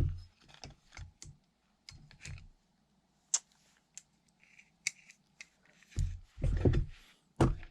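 Small hand tools clicking, tapping and scraping against a motorcycle cylinder head as a valve spring compressor is worked onto a valve spring, with a few heavier knocks near the end.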